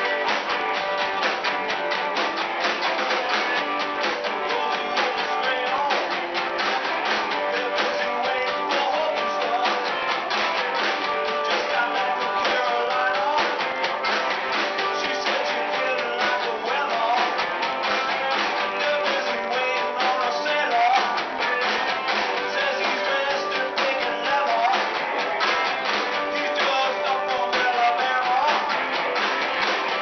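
Live rock and roll band playing: electric guitars and a drum kit, with a harmonica wailing over them. The recording is thin, with little bass.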